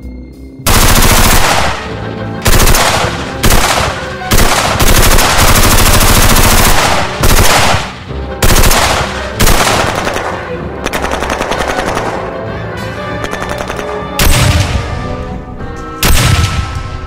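Automatic gunfire in repeated bursts, the rapid rattle of a submachine gun, filling most of the first half, with a few shorter bursts after it. Near the end come two single, heavier shots with a low boom.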